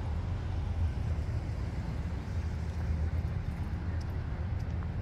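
Outdoor town-street background noise: a steady low rumble, with a few faint light ticks about four seconds in.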